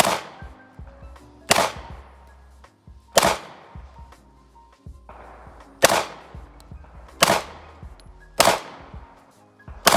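Pistol fired single shot after shot, seven sharp reports at an uneven pace of one every one to two and a half seconds, each with a short ringing tail. Faint background music runs underneath.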